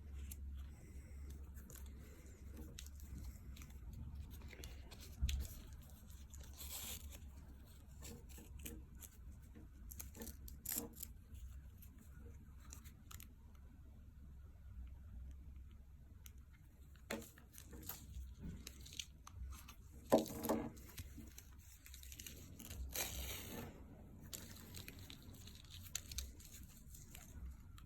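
Faint handling noises as a nylon Apple Watch sport loop band is fitted: scattered clicks and scrapes, with louder rasps of its hook-and-loop fastener being pulled apart about two-thirds of the way through.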